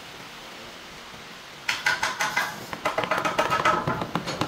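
Steel-headed hammer knocking wooden strips tight against the round wooden body of a stool: a quick run of sharp knocks, several a second, starting a little under two seconds in, some with a short ring.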